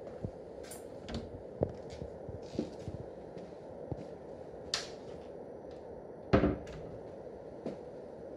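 Irregular light knocks and clicks of a person moving through a room while carrying the camera, with one heavier thump about six seconds in, over a steady low hum.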